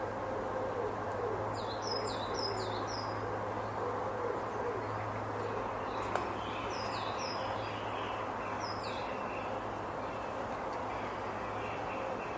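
Woodland ambience: a small bird gives short runs of quick, high, down-slurred notes several times, over the steady low hum of distant agricultural machinery and a light breeze through the trees. A single sharp click comes about six seconds in.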